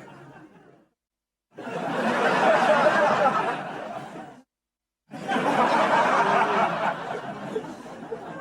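Studio audience laughter from a TV laugh track, in two separate bursts cut apart by dead silence: each swells quickly and then dies away over a few seconds. Before them, the tail of an earlier burst fades out.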